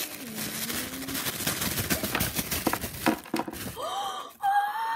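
Crinkling and rustling of a toy figure's white wrapping being pulled open by hand. Near the end comes a high, drawn-out excited vocal sound.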